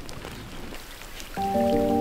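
Rain with scattered drops falling; about a second and a half in, background music with sustained chords starts abruptly and becomes the loudest sound.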